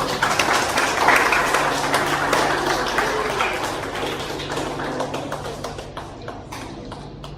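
Applause from a crowd clapping. It is loudest about a second in and gradually thins out toward the end.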